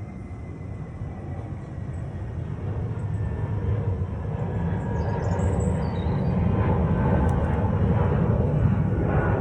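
Steady low rumble of a passing vehicle, growing gradually louder.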